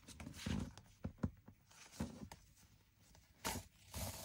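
Paper pages of a handmade journal being handled and a fabric ribbon pulled through punched holes in the stacked pages: short, scattered rustles and scrapes with a few light knocks.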